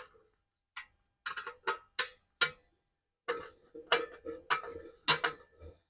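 Irregular sharp metal clicks and clinks of bolts, nuts and a hand tool on the heater's steel exhaust pipe as a bolt is fitted and tightened, some with a short ring.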